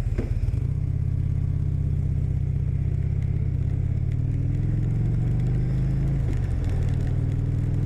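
Harley-Davidson Fat Bob's air-cooled Twin Cam 96 V-twin running steadily at low revs, with a fast, even pulsing beat.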